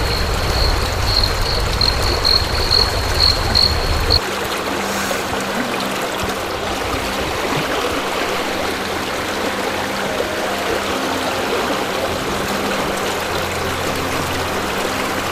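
Stream water at a rock waterfall running steadily. For about the first four seconds an insect chirps about three times a second over a low rumble; then that cuts off suddenly and only the running water remains.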